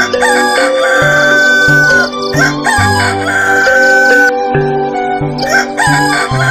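Rooster crowing, two long crows that rise and then trail off, with a third starting near the end, over background music.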